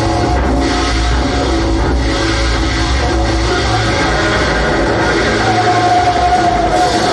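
Loud metal music: a dense wall of distorted electric guitars over a steady low end. A held note rises above it about five and a half seconds in.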